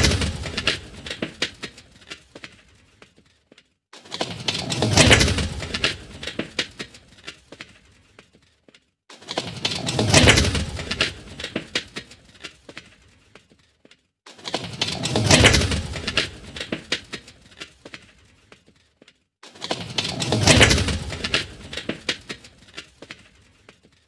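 Designed sci-fi sound effect of a rusty old hover speeder passing by, repeated about every five seconds: each pass swells, drops in pitch as it goes by and fades out, full of rattling and crackling. One pass is fading at the start, and four more follow.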